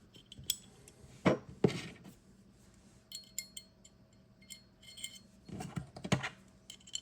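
Small Glock slide parts clicking and clinking as they are handled and fitted back together by hand: a series of short, separate clicks, some with a brief metallic ring.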